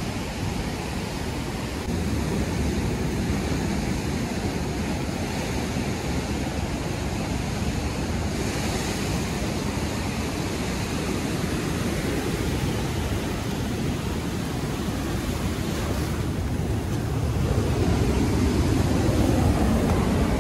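Ocean surf: waves breaking and washing up the sand in a steady rush, getting louder near the end.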